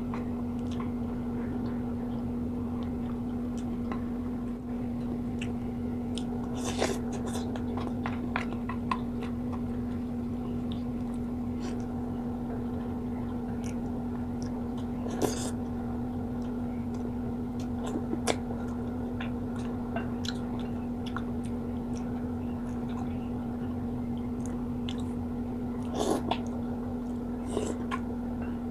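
Close-miked eating: chewing and mouth sounds from a mukbang meal of rice and fried tilapia, with a few sharp clicks as a wooden spoon scoops from the dishes, over a steady low hum.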